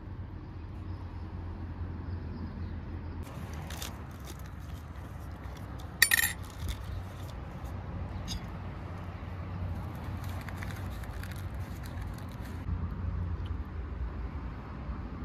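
Light crackles and taps of hands working with food and dishes over a steady low rumble, with one sharp, ringing glassy clink about six seconds in, the loudest sound: a metal spoon knocking against the glass serving dish.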